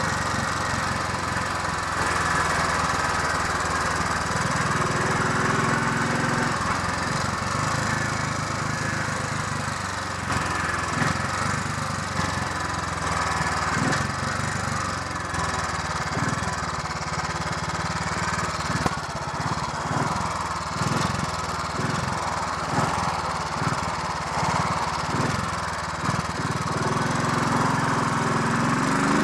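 Royal Enfield 500 Electra X's single-cylinder four-stroke engine running on the move during a warm-up ride, under steady wind and road noise. Its low note turns choppy and uneven through the middle stretch.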